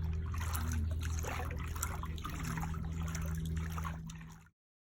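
Water trickling and splashing over a steady low engine hum, cutting off abruptly near the end.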